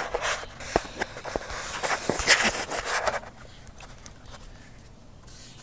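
Close handling noise of hands working the throttle cable free of a carburetor's throttle linkage: rustling and rubbing with a few sharp clicks for about three seconds, then quieter with only a few faint ticks.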